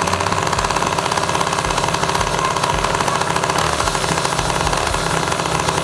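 Two-stroke grass-cutter engine on a drag bicycle running steadily through an aftermarket racing exhaust built for four-stroke engines, a fast, even buzzing exhaust note.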